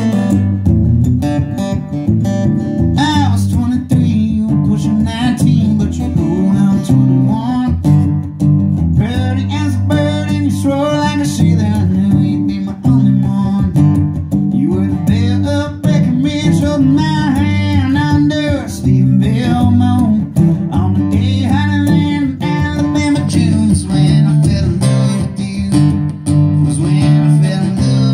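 Acoustic guitar strummed steadily with a man singing over it, a live solo country performance through a PA.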